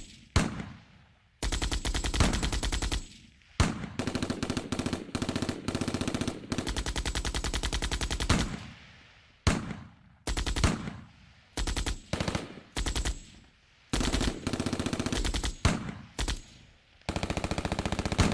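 Machine gun firing in rapid bursts of varying length, from short rattles to one burst of about four seconds. Each burst is separated by a brief echoing tail.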